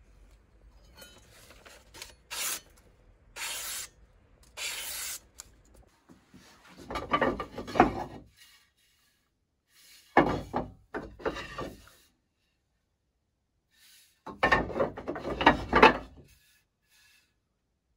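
Wooden axe handles rubbing and knocking against each other as they are rummaged through on a shelf, in three bursts of a second or two each. A few short, fainter scrapes come before them.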